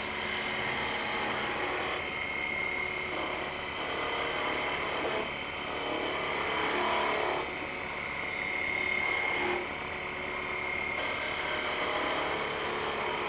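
Wood lathe running with a turning tool cutting the end of a spinning wooden spindle, rolling over its end. A steady high whine sits under a cutting hiss that rises and falls as the tool is worked in short passes every second or two.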